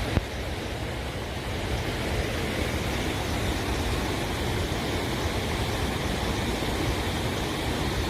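Running water in nature rushing with a steady, even sound. There is a short click about a fifth of a second in.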